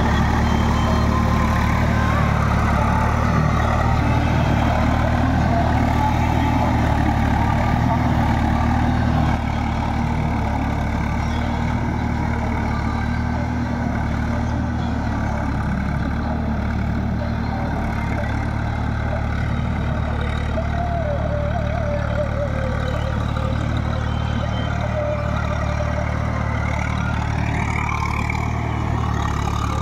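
Swaraj tractor's diesel engine running steadily while it pulls a rotary tiller through wet paddy mud, a constant low hum that gets slightly quieter about nine seconds in.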